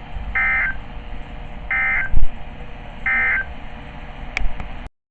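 NOAA Weather Radio SAME end-of-message data bursts: three short, buzzy digital chirps about 1.4 seconds apart, signalling that the warning broadcast is over. A loud low thump falls between the second and third burst, and the sound cuts off suddenly near the end.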